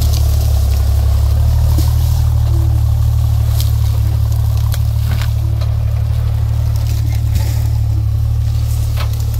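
Jeep engine running at low speed while crawling over rocky ground: a steady low drone, with scattered sharp clicks.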